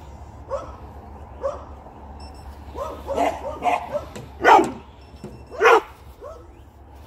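A dog barking in short bouts: a couple of small yips, then a quick run of barks, with the two loudest barks about four and a half and five and a half seconds in.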